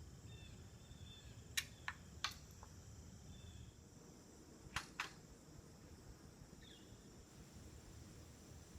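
Faint metallic clicks of a bolt-action rifle being handled: a few quick clicks about one and a half to two and a half seconds in, and two more near five seconds. Under them, a quiet background with a steady high insect hum.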